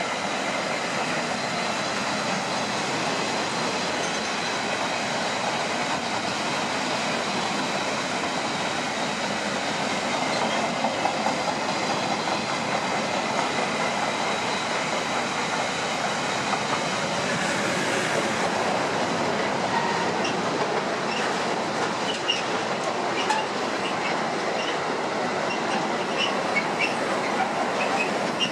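Freight train of empty double-deck car-carrier wagons rolling past steadily, wheels running on the rails with a clickety-clack over the rail joints. In the second half come short high-pitched wheel squeals and clicks.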